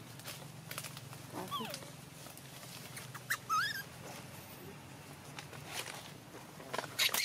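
Baby macaque crying in short high calls: a falling whimper about a second and a half in, then a wavering squeal about two seconds later. Scattered sharp clicks throughout, and a louder burst of clicks with a cry near the end.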